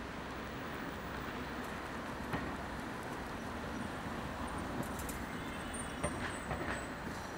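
Night city street traffic at an intersection: a steady hum of road noise as a car and electric scooters pass close by, with a few short sharp clicks about two seconds in and again near the end.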